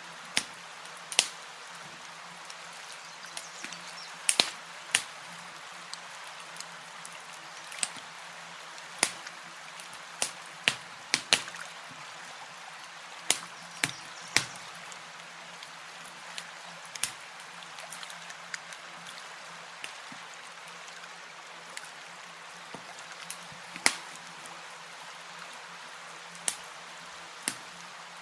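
Campfire crackling: irregular sharp pops and snaps, a few dozen of them, over a steady hiss.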